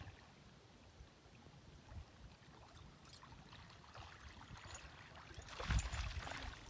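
Faint low wind rumble on the microphone with scattered light ticks, then a louder rush of noise about five and a half seconds in.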